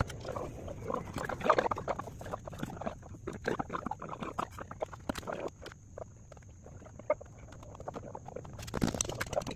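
Irregular scraping and tapping of a mason's trowel working cement on concrete-block steps. The strokes are busiest in the first half and thin out through the middle.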